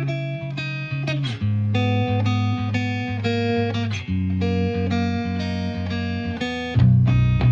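Background music led by guitar, with notes and chords changing about once a second; the bass gets louder near the end.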